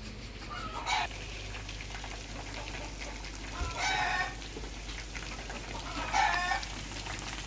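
Chickens calling three times, each call short and pitched, over the steady sizzle of chicken pieces and a festival dumpling deep-frying in hot oil.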